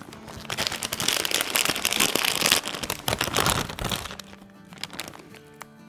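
Loud crinkling and rustling for about three seconds, made up of many fine crackles, then fading, over soft background music.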